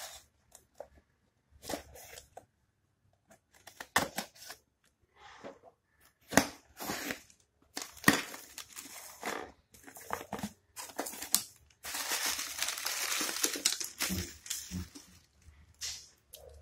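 A cardboard shipping box and its plastic wrapping being torn open and handled by hand: irregular rips, crinkles and knocks, with a longer unbroken stretch of tearing and crinkling about twelve seconds in.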